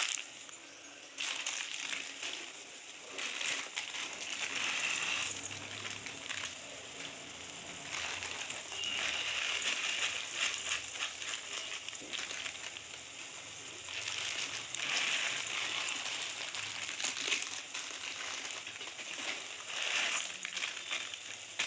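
Dry Maggi instant noodle cakes being crushed by hand and crumbled into a metal wok, an irregular crackling and rustling of brittle noodles, with the plastic packet crinkling as the last pieces are shaken out near the end.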